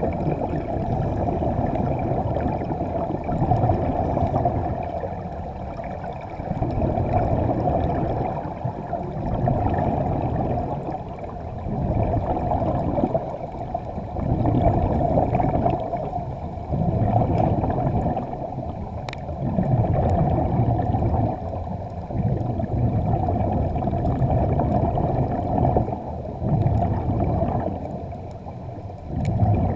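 Divers' breathing air bubbling underwater, heard muffled through the camera housing, surging and easing about every two to three seconds with each breath.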